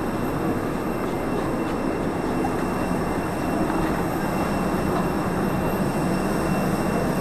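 Steady low rumble of engines and machinery on an airport apron, with faint steady high-pitched whines above it.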